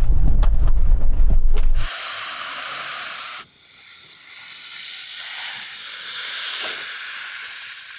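A heavy low rumble with knocks, then the hiss of muddy water thrown up by the Toyota Land Cruiser's tyres ploughing through puddles: a short burst about two seconds in, then a longer spray that swells and fades over the last few seconds.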